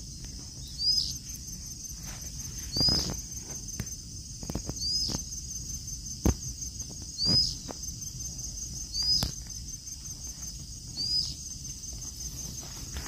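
Footsteps on woodland ground, one about every two seconds, each with a short high chirp, over a steady trill of crickets or other insects.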